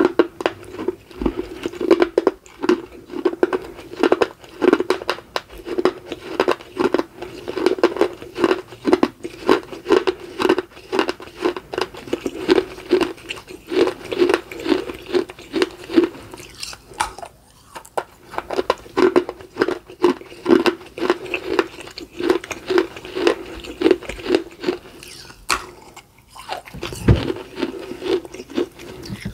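Close-miked crunching and chewing of fired red clay: a person biting off and grinding pieces of a small baked clay pot between the teeth, a rapid run of gritty crunches with a couple of short lulls.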